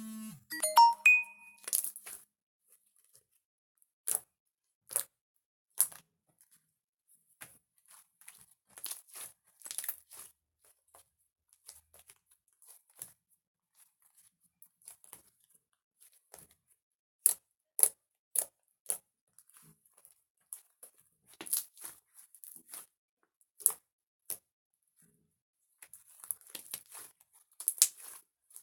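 Scattered short crinkles and clicks, irregular and separated by quiet gaps, with a brief chime-like note about a second in.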